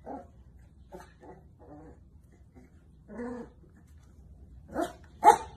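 Beagles yipping and whimpering: a few soft, short calls in the first few seconds, then two loud short barks near the end.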